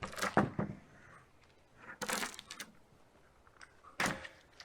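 Rough-sawn wooden boards knocking and clattering as they are handled, in three short bursts about two seconds apart.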